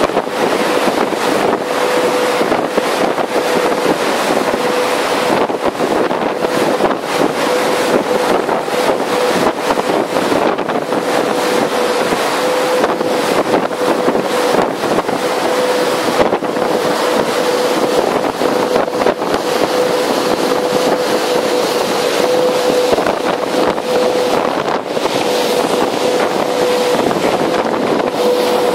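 Powerboats running at high speed through choppy open sea: a steady engine hum under rushing water and spray, with heavy wind buffeting the microphone.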